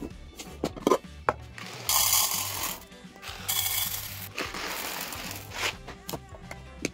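Dry penne pasta pouring and rattling into a clear plastic canister in two pours, about two and three and a half seconds in, after a few sharp knocks of a dry spaghetti bundle on a countertop near the start. Background music plays throughout.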